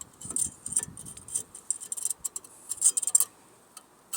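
Small metallic clicks and rattles of a front brake pad, with its steel backing plate and squealer wear tab, being worked into the brake caliper carrier and its clips, in quick irregular taps that stop a little after three seconds in.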